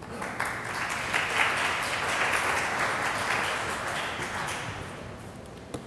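Audience applauding: a few seconds of dense clapping that starts at once, holds, and tapers off about five seconds in.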